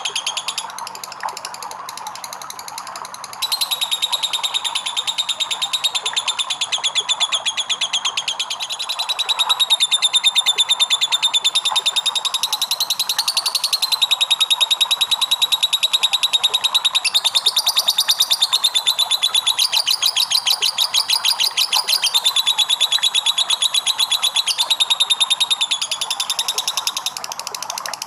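Lovebird ngekek: a long, unbroken chattering trill of very rapid notes. It is softer for the first few seconds, then loud and sustained, with its pitch stepping up and down a little.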